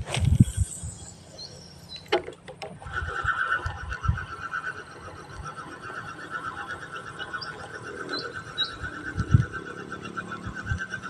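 Handling bumps and a rustle, a few sharp clicks about two seconds in, then a steady, rapidly pulsing trill from wildlife in the swamp that carries on to the end, with a few short bird chirps near the middle and more low bumps.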